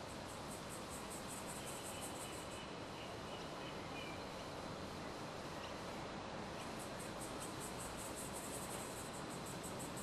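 An insect chirping in fast trains of high-pitched pulses, about eight a second, for a couple of seconds near the start and again through the last few seconds, over a steady background hiss.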